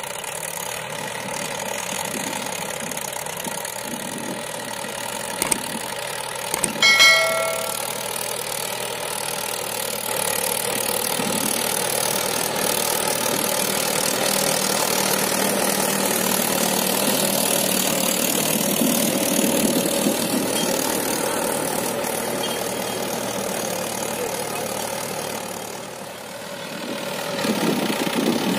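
Mahindra 575 DI tractor's four-cylinder diesel engine running steadily under load while pulling a rotary tiller through dry soil, growing louder near the end as the tractor comes closer. About seven seconds in there is a brief metallic ring.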